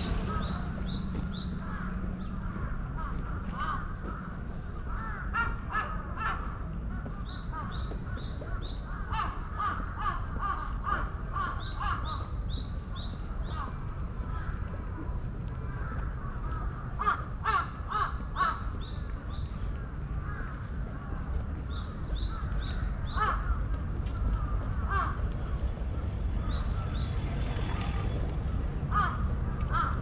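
Crows cawing in repeated bouts of short, harsh calls, over a steady low background rumble.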